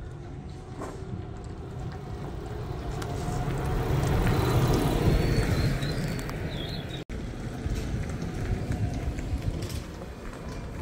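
Vintage double-deck trolleybus approaching and passing close by, its tyre rumble and quiet electric running noise rising to a peak about five seconds in and then fading. After a sudden break it stands at the stop with a low steady rumble.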